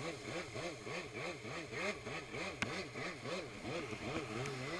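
Stand-up jet ski's Dasa 850 two-stroke twin, its revs swinging up and down about twice a second, with one sharp click midway. Just before the end it settles to a steady lower note.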